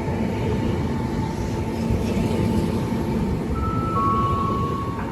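Train running through a station: a loud, steady rumble of wheels on the rails with a thin steady whine, and two short high-pitched squeals near the end.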